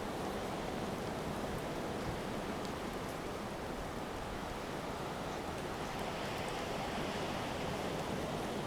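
Steady wind-driven rain of a coastal storm: an even rushing hiss with a few faint scattered ticks.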